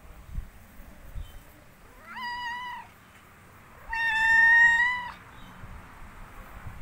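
Domestic cat meowing twice: a shorter, softer meow about two seconds in, then a longer, louder meow about four seconds in.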